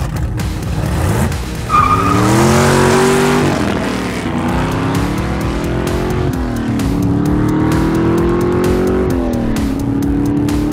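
Dubbed sports-car engine sound effect accelerating hard through the gears. Its pitch climbs and falls back at three upshifts, about four, seven and nine and a half seconds in. A brief high squeal comes about two seconds in.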